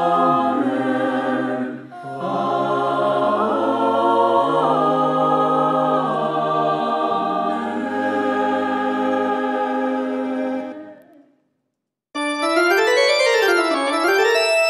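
A choir of voices singing slow, sustained chords with organ accompaniment, the last chord fading out about eleven seconds in. After a second of silence, a piano starts playing rippling arpeggios that rise and fall.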